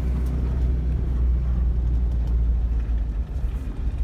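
Pickup truck driving while towing a loaded gravel trailer, heard from inside the cab: engine and road noise as one steady, low drone.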